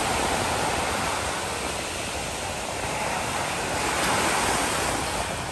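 Ocean surf breaking and washing onto a beach, a steady rushing noise that swells a little about four seconds in.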